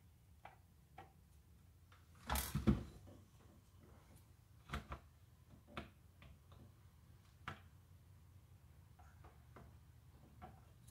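Hard plastic clicks and knocks as a circular saw's plastic motor cover is handled and fitted onto its housing: a cluster of louder knocks about two and a half seconds in, then a few single clicks spaced a second or two apart.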